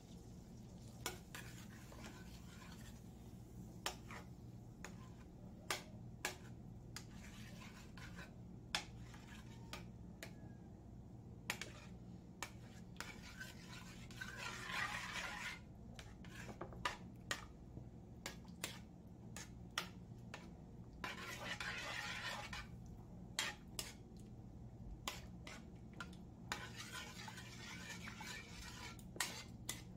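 A metal spoon stirring and scraping a thick creamy mixture around a metal wok: sharp clinks of the spoon against the pan every second or two, with stretches of faster scraping about halfway through, again a little later, and near the end. A steady low hum runs underneath.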